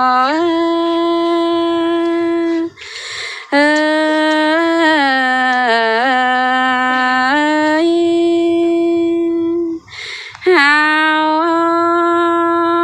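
A woman singing a Thái folk song alone, without accompaniment, in long held notes that slide from pitch to pitch. She breaks off twice for a breath, about three seconds in and again about ten seconds in.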